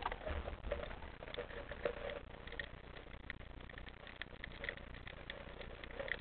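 Underwater sound through a waterproof camera housing: a dense crackle of small clicks and pops over a low rumble of moving water, with water sloshing around the camera as it dips through the surface near the start.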